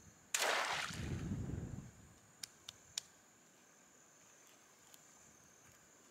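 A yabby net splashes into a dam just after the start, with a short churn of water as it sinks. A few sharp clicks follow. A steady high insect drone runs underneath.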